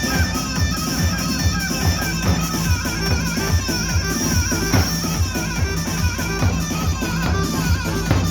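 Live folk dance music from a wedding band, played without singing: a steady drum beat under a wavering, ornamented instrumental melody.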